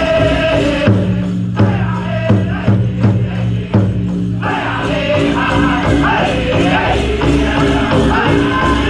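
Powwow drum group singing a chicken dance song: a chorus of men's voices over a steady beat on a big drum, with jingling from the dancers' bells. About a second in the singing drops to a lower pitch for a few seconds, then rises high again.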